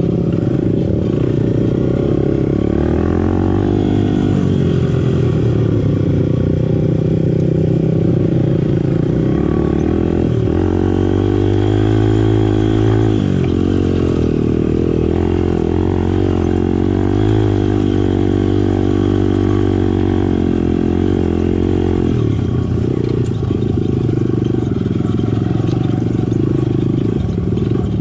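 Small dirt bike's engine running as it is ridden, the revs rising and falling several times, most clearly around three to five seconds in and again from about ten to fourteen seconds in.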